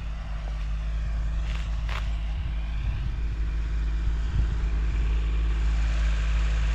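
Tractor engine running steadily, growing gradually louder, with two brief sharp sounds about one and a half and two seconds in.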